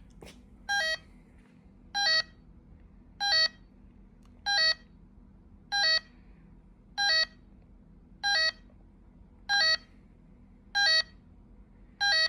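Radionics D1255 security keypad sounding its entry-delay warning: a short double beep repeating steadily about every second and a quarter. It is the countdown to disarm the system before the alarm goes off.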